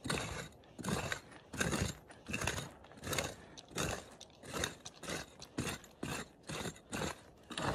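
Short-handled prospecting pick hacking repeatedly into stony red dirt, a crunching scrape on each stroke, a little more than one stroke a second.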